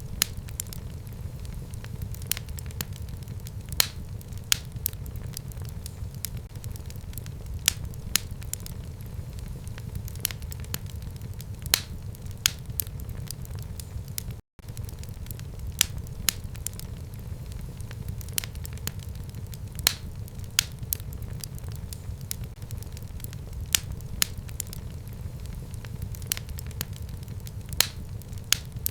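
Fire burning in a home fireplace: a steady low rumble with frequent sharp, irregular crackles and pops. About halfway through the sound drops out for a split second.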